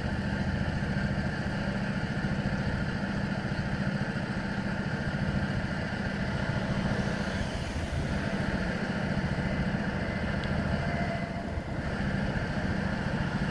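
A motor vehicle engine idling steadily: a constant low drone with a steady higher tone above it.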